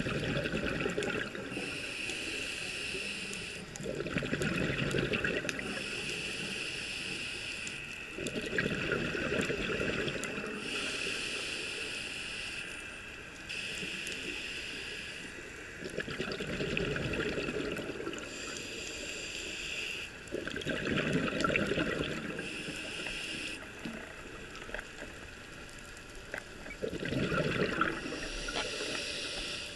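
Scuba diver breathing through a regulator underwater: a hissing inhale through the regulator alternates with a rush of exhaled bubbles, about six breath cycles in a steady rhythm.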